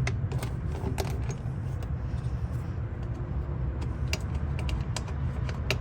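Light metallic clicks and clinks from small screws and a hand tool while the fuse box cover bolts are taken out, over a steady low rumble.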